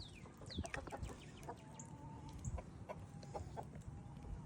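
Hen making faint vocalizations while being held for treatment of an injured foot: a couple of short falling calls at the start, then quiet drawn-out clucking notes.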